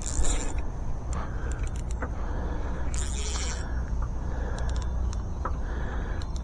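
Fishing reel being worked while fighting a hooked bass: repeated spells of cranking with small clicks, and two short hissing bursts, one at the start and one about three seconds in, over a steady low rumble.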